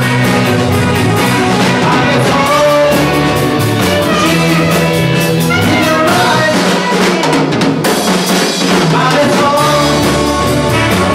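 Rock band playing live: drum kit and electric guitar, with a steady drum beat under the chords.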